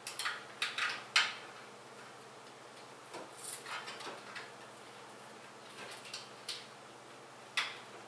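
Scattered light clicks, clacks and rustles of computer parts and cables being handled and fitted into a PC case, with one sharp click about a second in as the loudest.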